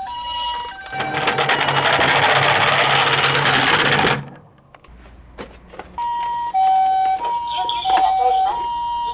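Japanese-style ambulance two-tone hi-lo siren alternating between two pitches, broken by about three seconds of loud, fast rattling as a toy minicar runs down a slope. The siren picks up again about six seconds in.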